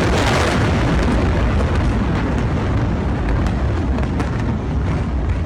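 Aftermath of a huge chemical explosion's blast: a dense, loud rumbling roar that is loudest at first and slowly eases, with a few faint sharp cracks scattered through it.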